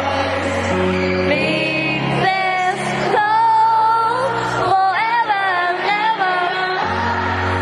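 A female singer sings a pop song live, accompanied by piano chords held under the voice.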